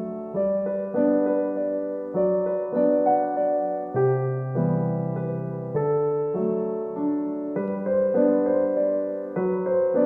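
Background piano music: a slow, gentle melody over sustained chords, each note struck and fading.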